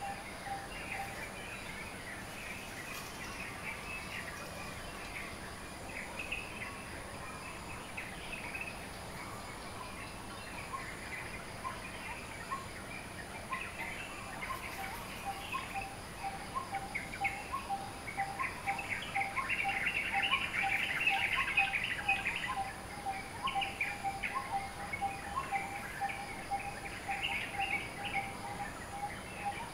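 Several birds chirping, with a quick string of short repeated notes running through the second half. The chirping is busiest and loudest about two-thirds of the way in.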